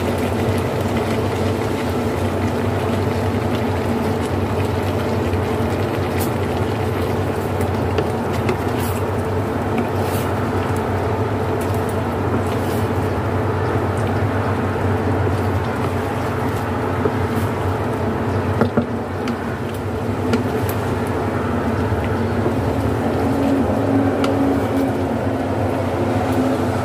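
Chicken and vegetable curry cooking in a wok in freshly added coconut milk, stirred with a wooden spatula that scrapes and taps the pan now and then, over a steady hum.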